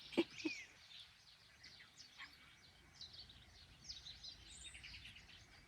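Faint birdsong: many small birds chirping and twittering in short, high calls over a soft background hiss.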